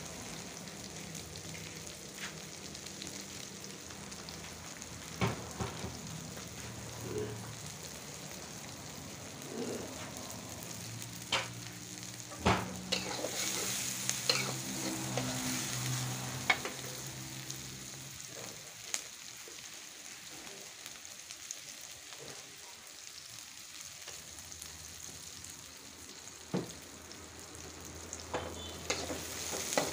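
Sliced onions and shallots sizzling in oil in a metal wok, with a metal spatula stirring them and now and then clinking sharply against the wok.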